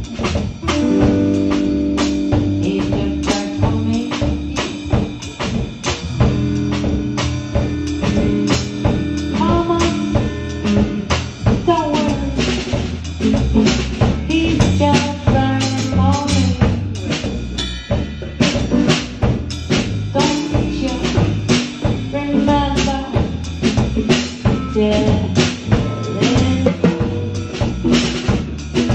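A band playing, with a drum kit keeping a steady beat under melodic instrument lines.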